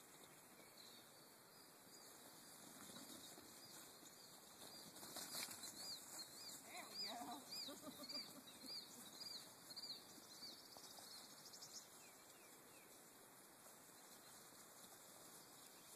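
Faint, near-silent outdoor quiet with a distant songbird singing a quick run of repeated high chirps, about two or three a second, for several seconds in the middle.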